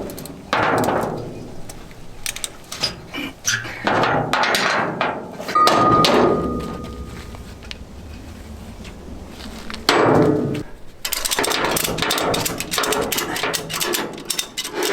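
Heavy metal bangs and clanks: a few single loud strikes, each ringing out, then a quick run of knocks and rattles from about eleven seconds in.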